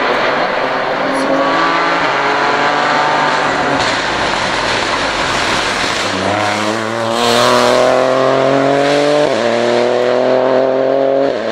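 Peugeot 208 rally car's engine at high revs as the car approaches and passes, then accelerating away with the pitch climbing through the gears, with two sharp upshifts, one about nine seconds in and one at the very end.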